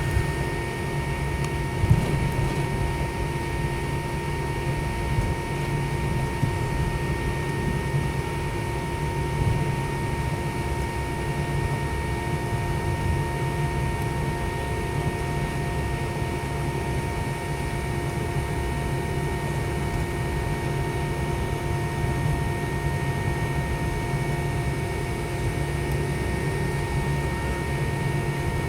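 Steady cabin hum of a parked MD-90 airliner's air-conditioning and ventilation, with several fixed whining tones over it and a brief knock about two seconds in.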